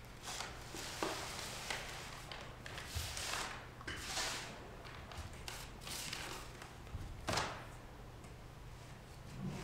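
Papers and envelopes rustling and sliding as they are sorted through by hand on a tabletop, in short, uneven bursts with a few soft taps; the loudest rustles come about three to four seconds in and again near seven seconds.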